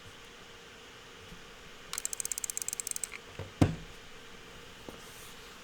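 Keystrokes on a Monsgeek M1 V5 TMR keyboard with stock Geonworks Raw HE magnetic switches, plastic stem bottoming out on plastic housing: a fast run of about a dozen clacks, then a single louder clack. The clacking is higher pitched, with no metallic ring.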